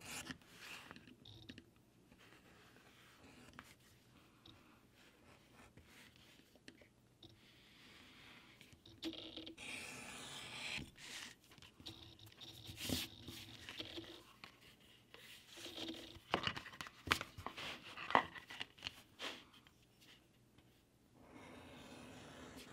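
A knife blade cutting through leather against a plastic cutting mat: uneven scraping, tearing strokes with small clicks and taps. The strokes come in short runs, the loudest about halfway through and again a little later.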